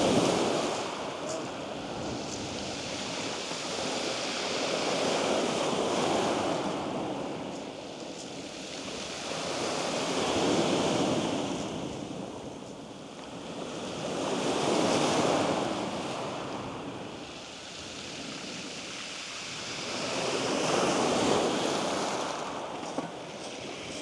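Waves breaking on a shingle beach, a swell of surf about every five seconds, each rising and then washing away.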